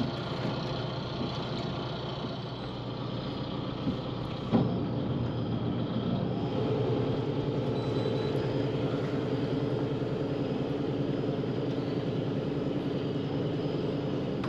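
Catamaran's port engine running steadily on its own, pushing the boat along. A single knock comes about four and a half seconds in, after which the engine runs a little louder.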